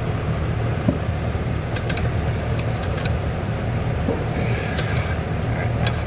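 Scattered light metallic clicks and clinks of hand tools, channel-lock pliers among them, working a shifter bushing and pin into place, over a steady low hum.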